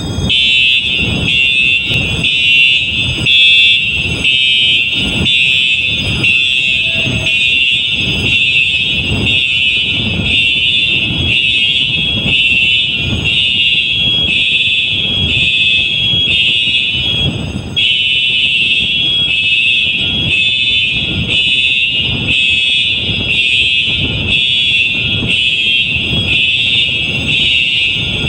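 Fire alarm sounders going off in a system test: a loud, shrill alarm tone pulsing steadily a little over once a second, with a low thump on each pulse.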